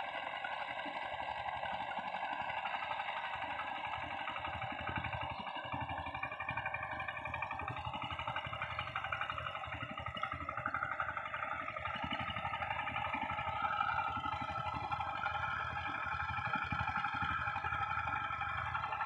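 Engines of two walking tractors (power tillers) running steadily as they work a flooded paddy field, with a rapid, even pulsing beat.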